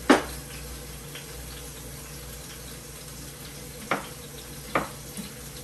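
Tempeh bacon frying in a pan with a steady sizzle, broken by a sharp knock near the start and two more knocks near the end as a knife and utensils are handled on the counter.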